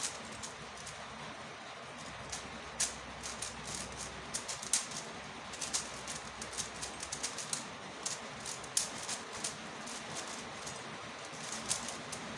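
MoFang JiaoShi MF5S 5x5 plastic speed cube being turned quickly by hand: a steady run of irregular clicks and clacks as the layers snap round.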